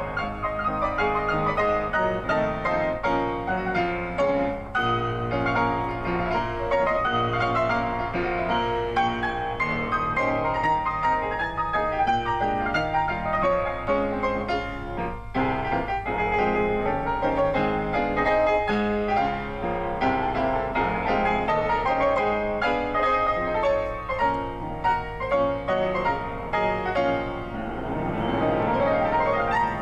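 Grand piano played solo: a classical piece with many quick notes and full chords.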